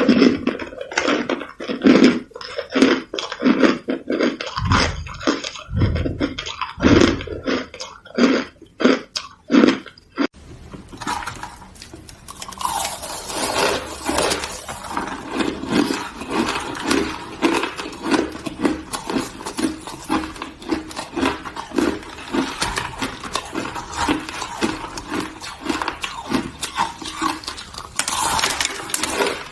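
Hard shaved ice being bitten and chewed close to the microphone, loud irregular crunches. About ten seconds in the sound changes abruptly to a faster, steady run of crunching.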